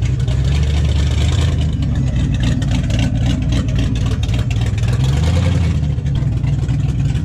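Dodge Challenger's 340 Six Pack small-block V8, fitted with a performance cam, running at idle, its pitch rising briefly about five seconds in.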